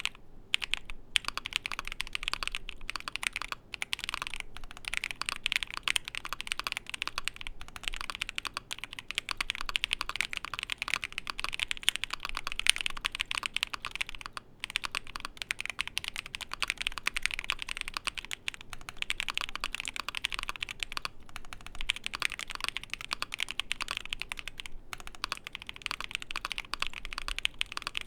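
Steady, fast typing on an ai03 Vega mechanical keyboard with lubed Moyu Black linear switches in a foam-filled polycarbonate plate: a continuous patter of keystrokes, with a few short pauses.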